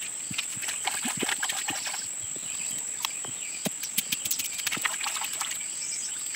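Fresh bamboo shoot being stripped of its sheath and chopped with a machete-like knife: an irregular run of sharp snaps, clicks and knocks.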